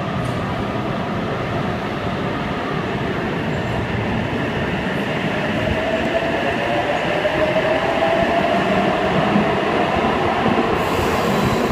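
Sydney Trains H-set OSCAR electric train (set H3) pulling out of an underground platform and picking up speed: a steady rumble of wheels and running gear, growing slowly louder, with a motor whine that rises gradually in pitch from about halfway through as it accelerates.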